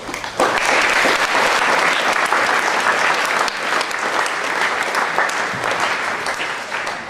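An audience of students clapping, starting about half a second in and fading out near the end; the hall echoes.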